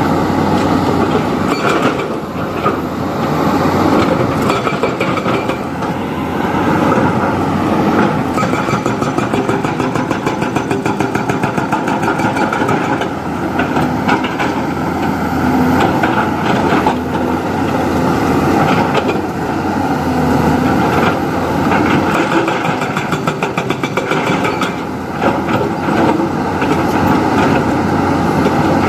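Diesel engine of heavy earth-moving machinery running continuously under working load, its level swelling and easing every few seconds.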